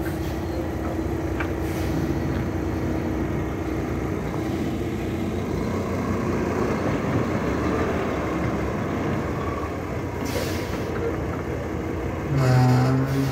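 Heavy truck engines running steadily during the recovery, with a short hiss about ten seconds in and a brief, loud pitched blast near the end.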